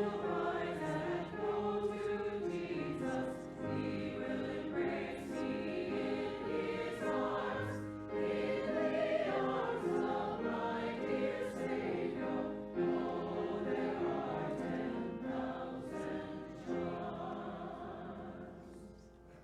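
A group of voices singing a hymn together, with sustained sung notes that die away near the end.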